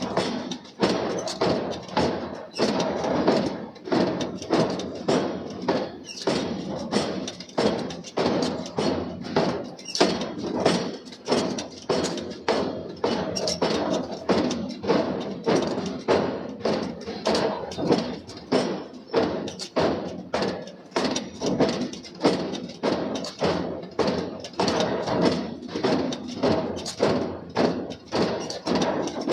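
Forging hammer striking steel billet stock in a steady rhythm, about two blows a second.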